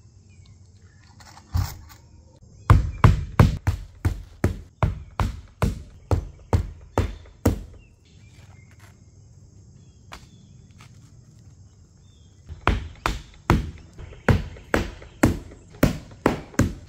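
Claw hammer driving roofing nails by hand through asphalt starter strip and ridge cap shingles: two runs of steady blows, about two a second, with a pause of some five seconds between them.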